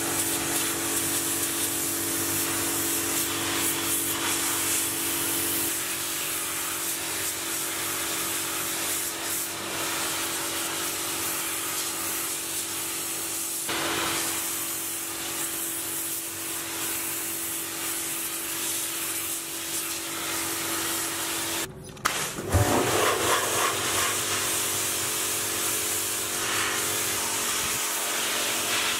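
High-pressure cleaner lance spraying a car's wheel well: a steady hiss of the jet over the cleaner's motor hum. It cuts out briefly about two-thirds of the way through, then resumes.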